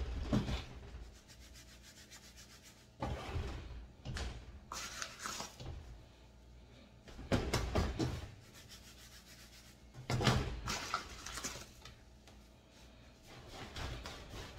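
Hands pressing and rubbing pizza dough across a floured pizza peel: several separate spells of scratchy rubbing about a second long, with short pauses between.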